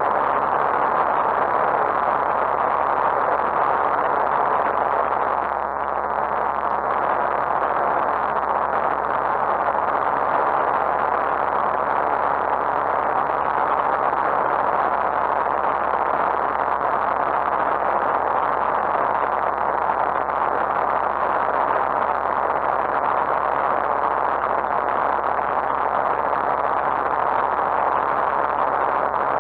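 Lightwing GR912 light aircraft's Rotax 912 engine and propeller running steadily in flight, with wind noise over the airframe, heard from inside the cockpit. The level dips briefly about six seconds in.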